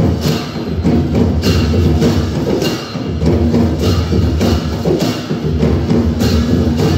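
Newari dhime barrel drums beating a driving rhythm, with hand cymbals clashing on the beat: the processional drum music that accompanies a Lakhe dance.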